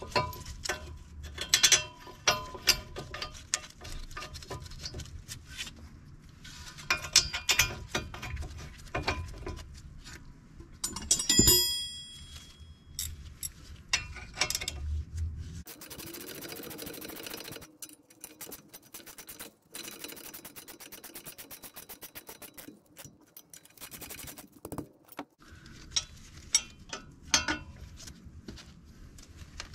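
Hand tools on a steel brake caliper bracket: metal clinks and knocks, then one loud ringing metal clank a little over a third of the way in. In the second half comes a long run of fast, even clicks, a ratchet turning the bracket bolts.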